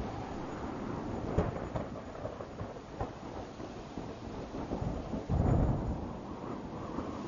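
Steady rushing noise of wind and water, with a few short knocks early on and a loud, deep rumble about five seconds in.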